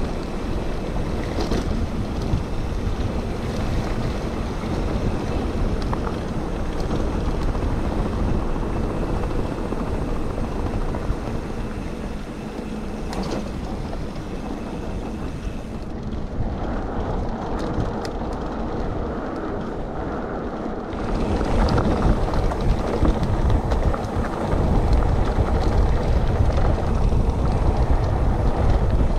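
Mountain bike riding, heard from a handlebar-mounted action camera: a steady rush of wind on the microphone mixed with the rumble of the tyres rolling over grass and a rutted dirt track. It grows louder and rougher about two-thirds of the way through.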